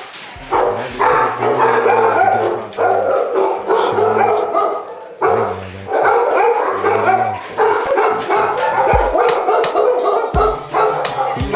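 Many shelter dogs barking and yelping at once, a continuous overlapping chorus of barks.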